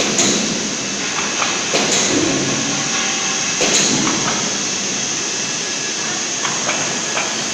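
Steady running noise of machinery in a steel fabrication shop, with a few sharp knocks in the first four seconds.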